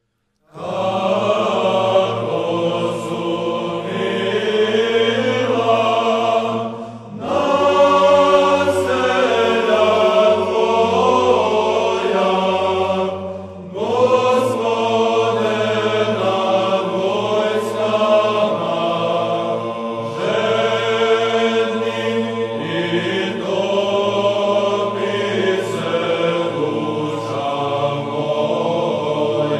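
Slow choral chant: several voices sing long held lines over a steady low drone, with brief pauses between phrases about 7 and 13 seconds in.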